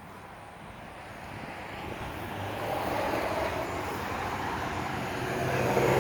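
Semi-truck on the highway, a Freightliner Columbia, approaching with its engine and tyre noise growing steadily louder, not sounding its horn.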